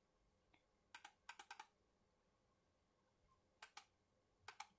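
Faint computer mouse button clicks, each a quick press-and-release pair: a cluster about a second in, then a few more near the end. They come from selecting a colour and filling areas with the paint bucket in a drawing program.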